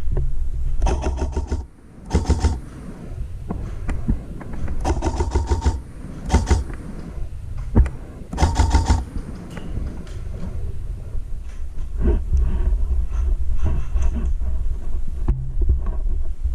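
Airsoft electric guns firing about five short full-auto bursts, each a rapid run of evenly spaced mechanical clicks, over a steady low rumble of gear and wind noise on a helmet camera.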